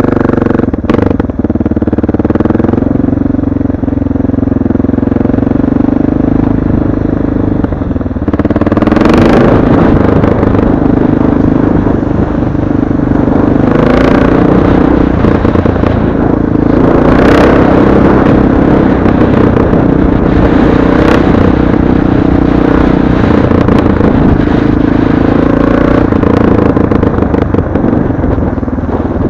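Motorcycle engine running at road speed, its pitch shifting with the throttle, with a few short hisses over it.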